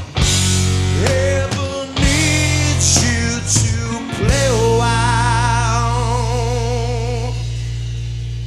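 Live blues-rock band of electric guitar, bass guitar and drums playing the closing bars of a song: bending lead notes and drum hits, then about four seconds in a long held note with wide vibrato over a sustained bass note, slowly fading.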